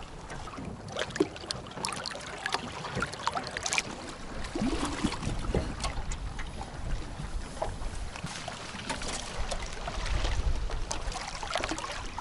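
Wind on the microphone and small waves lapping against an aluminium boat hull, with scattered knocks and clatter as a small Yamaha outboard motor is lifted onto the transom.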